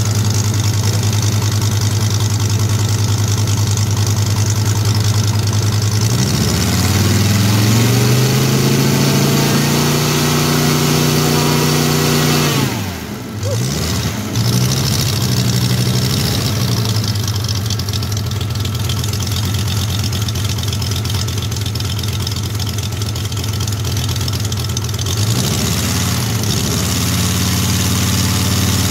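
A motor vehicle's engine running steadily, its pitch climbing as it speeds up about six seconds in, dropping away and wavering briefly around thirteen seconds, then rising again near the end.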